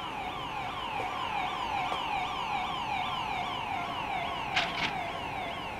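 Electronic warbling tone, a quick falling glide repeated about four times a second, with two short sharp hissing bursts about four and a half seconds in.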